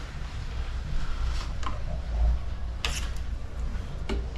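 A few light clicks and taps, one sharper about three seconds in, over a low steady hum: small parts being handled at a bike workbench.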